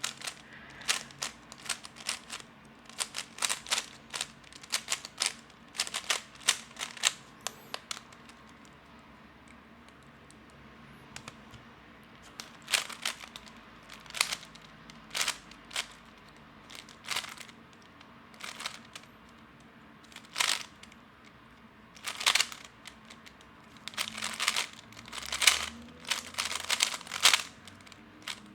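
Magnetic 3x3 speed cube, lubed and set loose, being turned fast: rapid plastic clicking in quick bursts, with a few seconds of near pause about a third of the way in.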